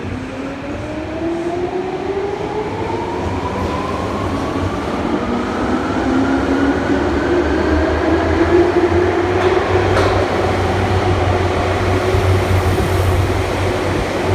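Tokyu 8500 series electric train pulling out of an underground station platform. Its traction motors whine in several tones that climb steadily in pitch as it accelerates, over a low rumble from the wheels that grows louder. A single sharp click comes about ten seconds in.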